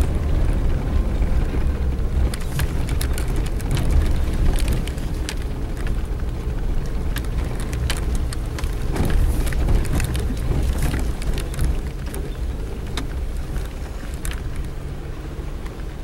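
Suzuki Jimny driving slowly over a rutted dirt road, heard from inside the cabin: a steady low engine and road rumble with frequent sharp knocks and rattles as the vehicle jolts over the ruts.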